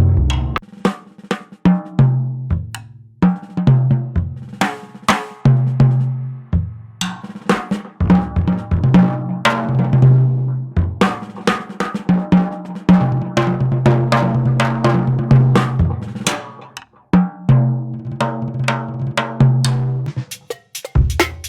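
Jazz drumming on a small bebop drum kit with high tunings, played through Sensory Percussion samples: snare strokes, rolls and rimshots, pitched tom and bass drum notes that ring, and cymbal hits in busy, uneven phrases.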